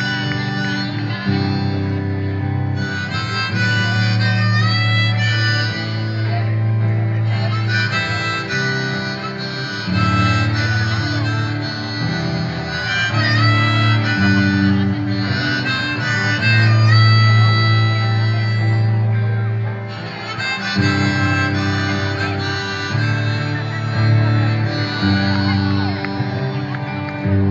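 Live harmonica and guitar playing an instrumental passage, the harmonica holding long notes over the strummed guitar.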